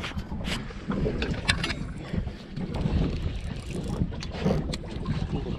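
Wind buffeting the microphone aboard a small fishing boat, a steady low rumble, with a few sharp clicks and knocks scattered through it.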